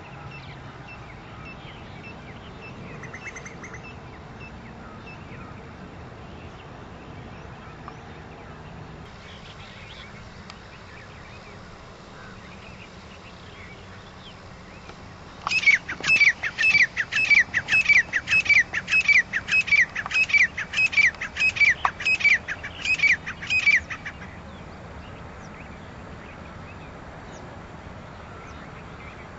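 Grey francolin calling: a loud run of quick, repeated shrill notes, two or three a second, that starts about halfway through and stops some eight seconds later.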